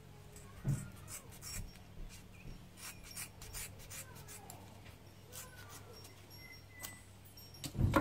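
Scissors snipping through thick seat-belt webbing: a run of short, sharp cutting crunches over several seconds, with a louder knock near the end.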